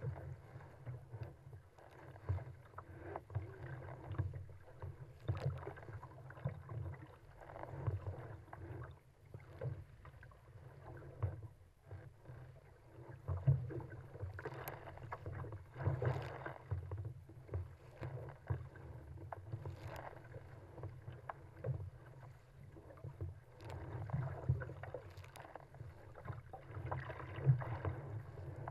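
Rough sea water splashing and sloshing against a kayak's hull as it is paddled downwind through choppy waves, in irregular surges over a constant low rumble.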